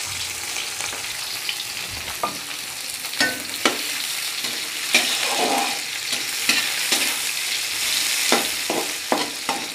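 Sliced onions sizzling in hot oil with chopped garlic in a metal pan, frying toward light brown. A slotted metal spatula stirs them, scraping and clicking against the pan every second or so.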